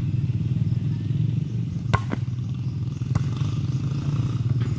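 A steady low engine drone with a fine pulsing beat, and three sharp clicks about two, three and four and a half seconds in.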